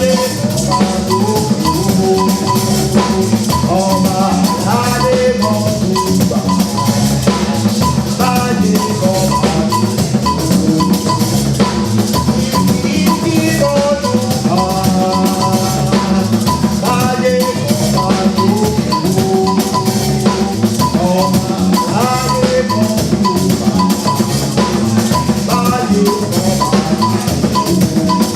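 Instrumental music with a steady, dense drum beat and short melodic phrases played over it.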